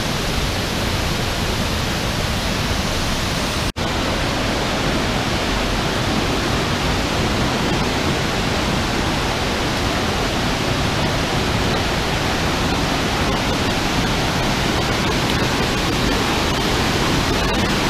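Steady rush of a waterfall pouring into a narrow rock gorge, with a momentary break in the sound about four seconds in.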